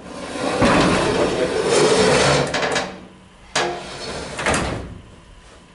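Corrugated steel vertical-sliding door of an old freight elevator being dragged down by hand, scraping and rattling in its guides for about three seconds because it has come off its track. Two sharp metal bangs follow, about a second apart, as it comes down.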